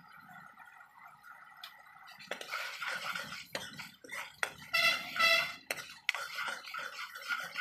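Metal ladle stirring gravy in a metal kadhai (wok), with scraping and clinks against the pan from about two seconds in. About five seconds in comes a loud high-pitched tone, twice in quick succession.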